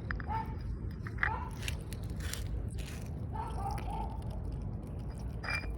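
A cat chewing food, with a run of quick crunching clicks a couple of seconds in, over a steady low hum. Several short pitched squeaks are heard along with the chewing.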